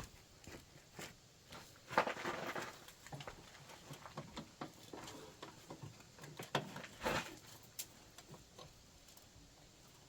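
Scattered light clicks, knocks and short scrapes of hands and tools working on a riding mower's belt idler arm and cotter pin, with louder scrapes about two seconds in and around seven seconds in.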